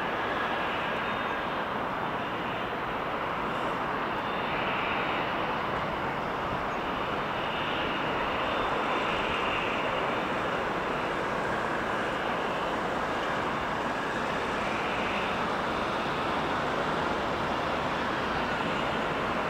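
Three Garrett TFE731 turbofan engines of a Dassault Falcon 900 running at taxi power, giving a steady jet whine.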